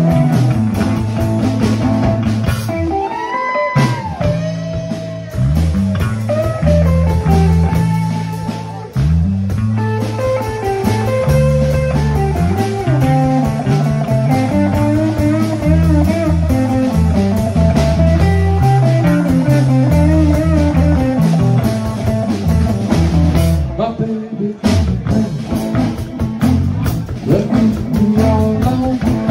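Live band playing: electric guitar over a moving bass line and a drum kit. The lead guitar bends notes about three seconds in.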